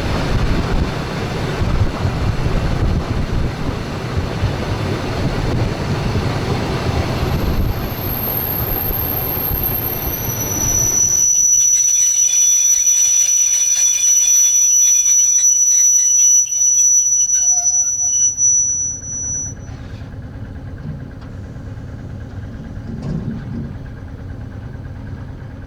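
Express passenger train heard from its front cab, its wheels rumbling on the rails at first. The brakes then squeal in high steady tones for several seconds as the rumble fades and the train slows. A quieter steady hum follows near the end.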